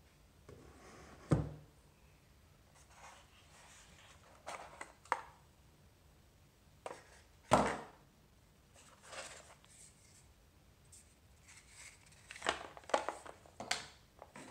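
Handling of a cardboard tablet box and its packaging: knocks, clicks and rustles as pieces are lifted out and set down, with two sharper knocks, one about a second in and one about seven and a half seconds in, and a cluster of rustling and knocks near the end.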